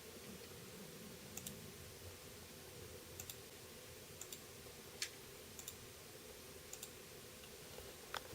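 Faint, light clicks, single and in pairs about once a second, from taps while an Android tablet is being worked, over a steady low hum.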